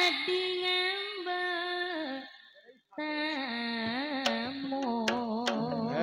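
Female sinden singing through a microphone and PA: long held notes with ornamented, wavering turns. About halfway through she drops off and pauses briefly, then resumes, and a few sharp percussion strokes come in behind her.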